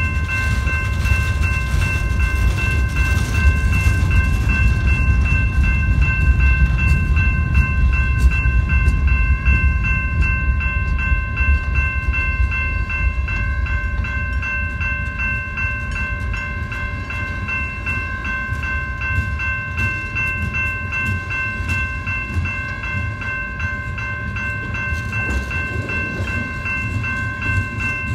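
Freight train rolling past, the wheels and cars making a heavy rumble that eases somewhat after the first half as lumber-loaded centerbeam flatcars give way to tank cars. Over it a grade-crossing warning bell rings continuously with a steady high tone.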